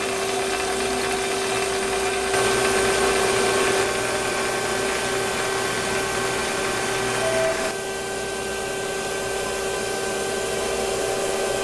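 Glebar PG-9DOD OD grinding machine running as its wheel grinds a hard transmission bushing on an arbor under coolant: a steady motor hum with the hiss of coolant spray and grinding. It gets a little louder about two seconds in and quieter just before eight seconds.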